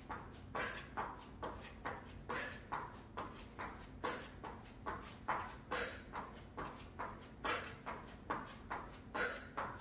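Sneakers landing again and again on a yoga mat over a hard floor as someone does jumping jacks: a steady rhythm of soft impacts, about two to three landings a second.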